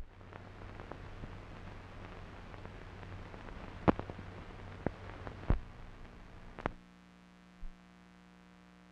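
Surface noise of an old optical film soundtrack running without narration: a steady hiss and hum crackling with sharp pops, several of them loud. About two thirds of the way in, the hiss stops and only a fainter steady hum remains as the reel ends.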